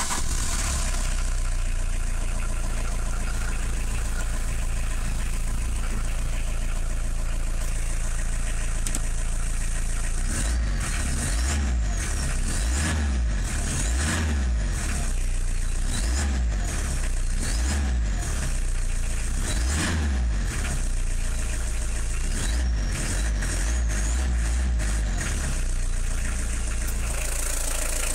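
Opel Astra G 1.7 DTL four-cylinder turbodiesel running just after an engine rebuild with new connecting-rod bearings, crankshaft and connecting rod. It idles steadily, then from about ten seconds in it rises and falls in a series of short surges before settling again near the end.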